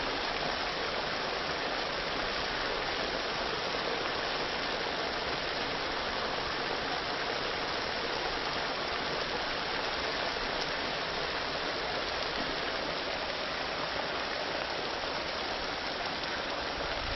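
Chicken deep-frying in hot oil, a steady sizzling.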